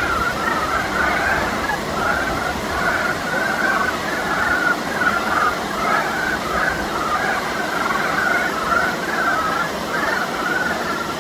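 A dense breeding chorus of brown frogs calling from a spawning pool: many overlapping short, clucking calls, several a second, running on without a break.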